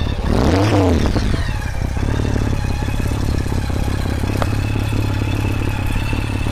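Honda Gold Wing Valkyrie's flat-six engine blipped once near the start, revs rising and falling back, then idling steadily. A single click is heard about four seconds in.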